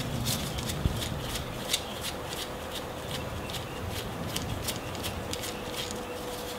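Gloved hands handling a small steel rod end (heim joint) and its spacers, pulling them apart: a run of light, irregular metal clicks over rubbing of the gloves.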